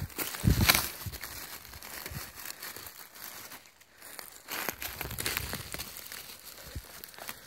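Dry fallen leaves and twigs on the forest floor rustling and crackling as hands rummage through them to pick mushrooms, in irregular bursts, loudest about half a second in.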